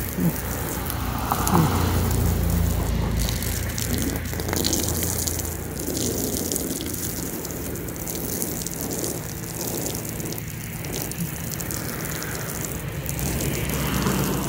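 Water spraying from a hose onto thin plywood sheets, a steady spattering hiss, to soak the wood so it can be bent.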